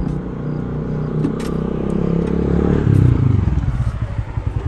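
A combustion vehicle engine running close by, growing louder until about three seconds in, then settling into a rapid, pulsing throb.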